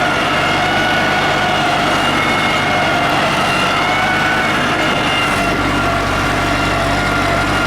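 Valmet 85 ID tractor's diesel engine running steadily under load while pulling a disc harrow, with a steady high whine over the engine sound. The low rumble grows stronger about five and a half seconds in.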